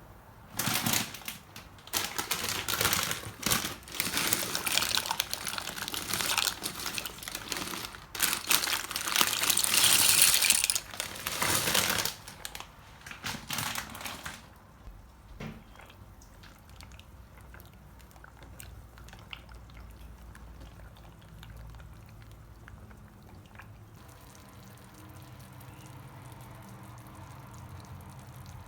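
Kitchen food-preparation sounds: about fourteen seconds of loud, uneven rustling and running-water noise, then softer light clicks, and a low steady hum starting near the end.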